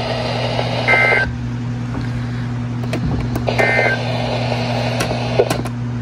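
Weather alert radio speaker playing two short, shrill two-tone S.A.M.E. data bursts, the end-of-message code after the weekly test broadcast, over static hiss and a steady low hum. A few sharp clicks follow near the end.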